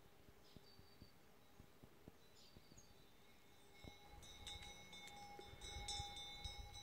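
Faint, near-silent rural ambience with a few short, high bird chirps. From about four seconds in, a low rumble and scattered light clicks grow louder.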